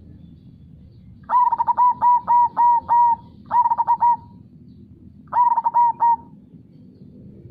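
Zebra dove (perkutut) cooing in three phrases of clipped, ringing notes: a run of about six, then a shorter group, then a last group near the end. Underneath is a steady low rush of flowing river water.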